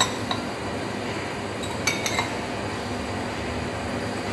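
Four light clinks of the metal charging-hose fitting against a glass beaker as the oil in it is drawn into the refrigeration system by vacuum. Two clinks come near the start and two about two seconds in, over a steady low hum.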